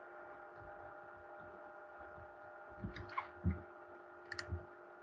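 Faint clicks and taps of a pen stylus on a tablet while writing, in two short clusters about three and four and a half seconds in, over a steady low electrical hum.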